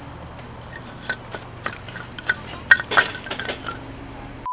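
Dishes and cooking utensils clinking and knocking as they are handled, a run of short, scattered clinks that come thickest a little past the middle.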